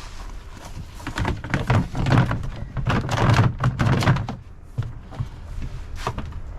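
Dull thumps and scuffling as a big Cornish cross chicken is handled and taken out of its container, loudest in the middle stretch.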